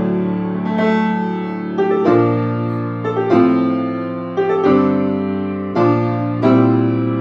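Grand piano played firmly: full chords struck in a short-long dotted rhythm, each left ringing.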